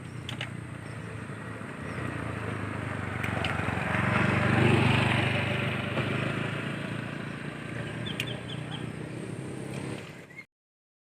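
A motor vehicle's engine passing by, growing louder to a peak about halfway and then fading. The audio cuts off abruptly near the end.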